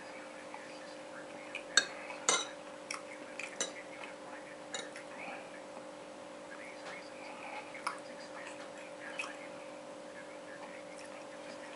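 Metal fork clinking and scraping against a china plate of rice, in scattered sharp clicks that are loudest about two seconds in, over a steady low hum.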